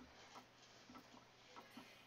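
Near silence: faint, irregular light ticks and taps, several over the two seconds.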